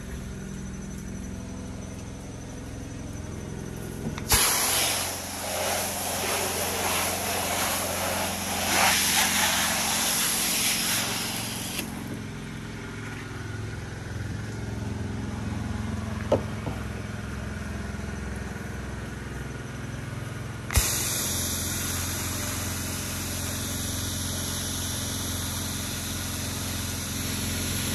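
Soft-wash rig's engine-driven pump running steadily, with the hiss of water spraying from the nozzle coming on twice: about four seconds in for some eight seconds, and again about three quarters of the way through until the end.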